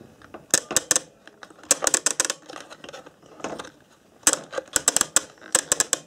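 Mechanical program timer of a washer-dryer control panel being turned by hand, clicking through its positions in several quick runs of clicks.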